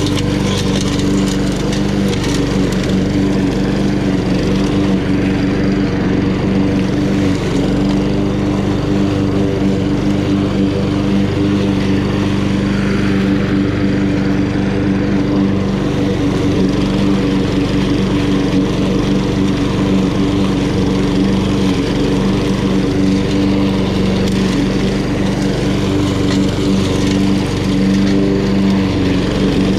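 Honda GCV170 single-cylinder engine on an HRN216 walk-behind lawn mower running steadily at a constant speed while mowing, with no change in pitch or load.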